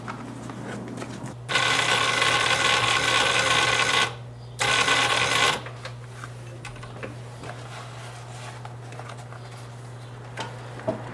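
Industrial post-bed sewing machine stitching a leather shoe upper in two runs, one of about two and a half seconds and a shorter one of about a second, with a brief stop between. A low steady hum sits underneath, and a few light clicks come near the end.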